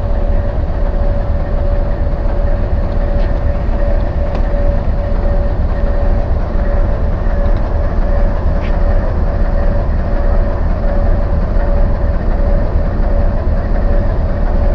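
Diesel locomotive running at idle: a steady, loud low rumble with a constant whine held on one pitch.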